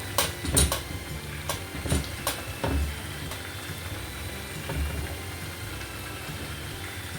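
Kitchen clatter: several sharp knocks and clinks in the first three seconds and another near the middle, over a steady low mechanical hum.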